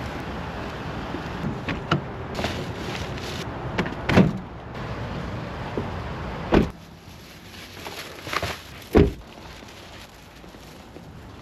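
A few knocks and handling thumps, then a door shutting with a solid thud about two-thirds of the way in, after which the surrounding noise drops. Another single thump follows near the end.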